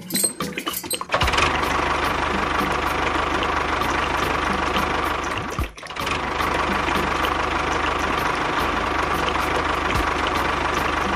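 Steady engine-like running sound of miniature model tractor and road-building machines, with a few clicks in the first second and a brief drop about halfway through.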